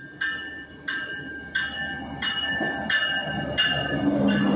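A warning bell rings in steady, even strokes, about three every two seconds, as a Stadler GTW diesel light-rail train pulls into the platform. The bell stops near the end while the rumble of the arriving train grows louder.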